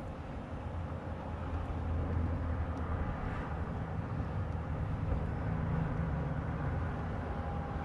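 Boat motor running with the boat under way, a steady low drone over rushing noise that picks up slightly about two seconds in.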